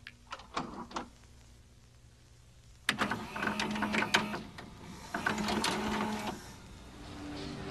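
A VHS cassette being pushed into a VCR: a few sharp plastic clicks, then from about three seconds in the machine's loading mechanism whirs and clicks for about three and a half seconds as it takes in the tape.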